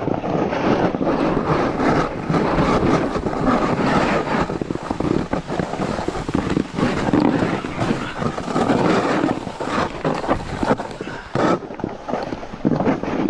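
Wind buffeting the microphone over the hiss and scrape of a snowboard sliding over snow, the loudness rising and falling unevenly throughout.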